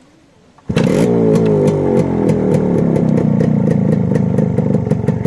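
Two-stroke motorcycle engine, of the Yamaha RX kind, coming in suddenly just under a second in and revving in repeated throttle blips, its pitch rising and falling again and again.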